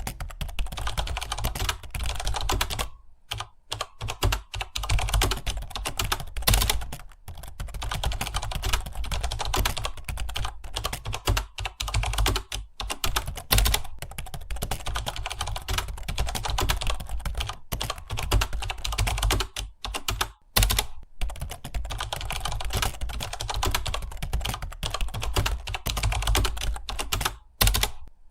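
Fast, continuous typing on a computer keyboard: a dense run of key clicks broken by a few short pauses.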